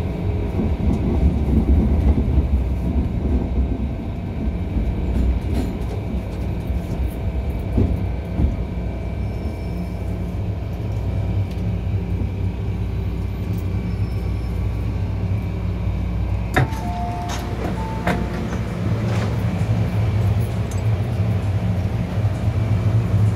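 Cabin sound of an MTR M-Train electric multiple unit under way: a steady low rumble of wheels on rail and running gear, with a few sharp clicks about two-thirds of the way through.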